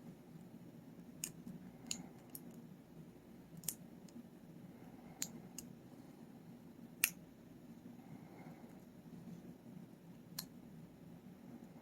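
Lock pick and tension wrench working the pins of a Paclock 90A-Pro 7-pin padlock: scattered, irregularly spaced sharp metallic clicks over a low steady hum.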